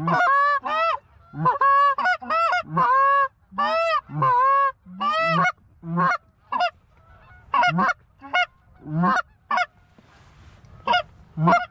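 Loud, close goose honks and clucks in quick runs, each call rising and then falling in pitch, with short gaps between the runs.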